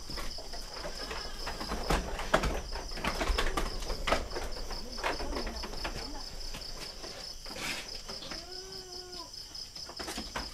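Crickets chirping in a steady pulsing trill, with scattered knocks and clatter in the first half and one short animal call, about a second long, near the end.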